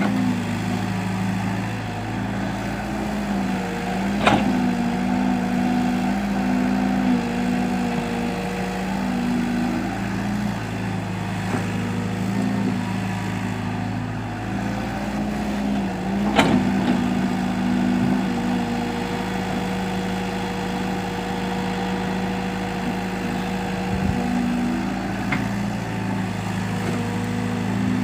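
Excavator's diesel engine running steadily, its note stepping up and down several times. Sharp knocks sound once about four seconds in and again about sixteen seconds in.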